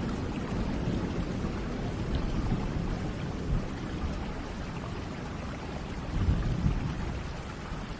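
Steady rain with low rolling thunder, the rumble swelling about six seconds in.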